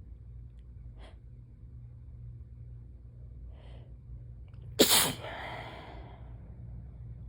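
A person sneezes once, loudly, almost five seconds in, after a short breath in, during a sneezing fit.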